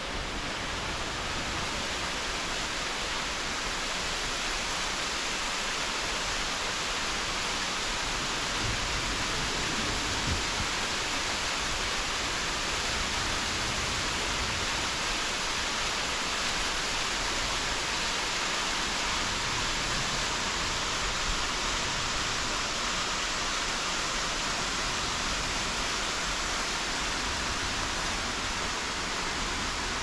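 Waterfall pouring into its plunge pool: a steady, even rush of water.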